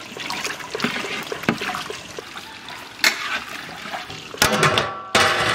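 Long metal spatula stirring cubes of green jackfruit in water in a large aluminium pot, the water sloshing, with a few sharp knocks, the loudest about three seconds in.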